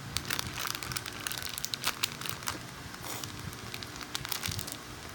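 Irregular crinkling and crackling as a foam squishy toy is handled and squeezed, likely in or against a plastic bag.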